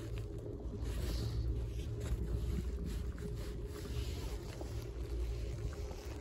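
Wind rumbling on a phone microphone during a chairlift ride, a steady low rumble with faint scattered clicks.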